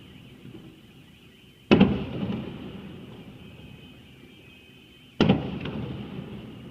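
Two fireworks shells bursting close by, about three and a half seconds apart. Each sharp bang trails off in a long rumbling echo.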